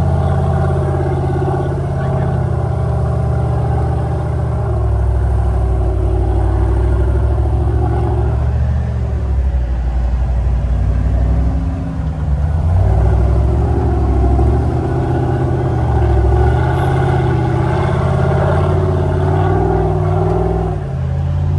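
A race Jeep's LS V8 engine running as the Jeep drives along a sandy trail, its note stepping up and down with the throttle and easing off for a couple of seconds about halfway through.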